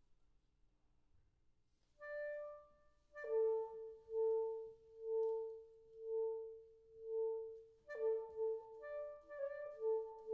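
Soprano saxophone: after about two seconds of near silence it plays one note, then repeats a lower note about once a second, then moves into a quicker line of notes near the end.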